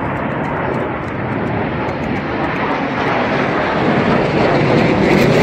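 A formation of air-show aircraft flying past, a steady rush of engine noise that grows louder toward the end.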